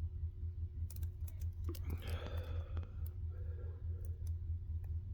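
Small sharp clicks of a lock pick working the pin stacks inside a Ruko 600 lock with barrel spool pins, over a steady low hum. A short rushing noise comes about two seconds in.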